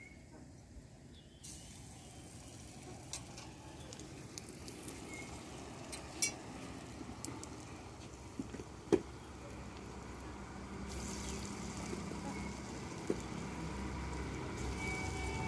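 Chana dal fritters sizzling as they deep-fry in hot oil in a metal wok; the sizzle starts about a second and a half in as a fritter goes into the oil and grows slowly louder. A few sharp pops stand out over it.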